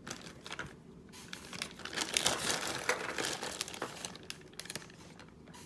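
Packaging crinkling and rustling as it is handled, with many small crackles, loudest in the middle and fading near the end.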